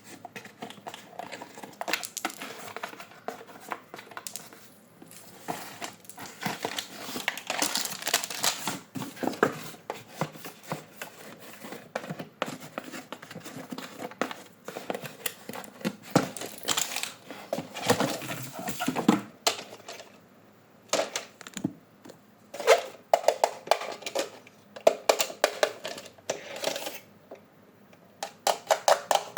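Toy packaging and plastic toy parts being handled: irregular crinkling and rapid clicking, busy at first, then sparser with short runs of quick clicks in the second half.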